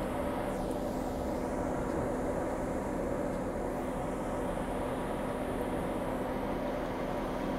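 Steady city street noise: traffic with a constant low engine-like hum that does not change.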